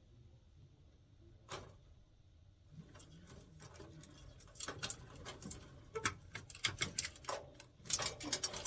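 Plastic clicks and rattles of a furnace control board being handled: its wiring harness plug pushed in and the board snapped into its mounting. Mostly quiet at first with a single click, then a busy run of clicks from about halfway on.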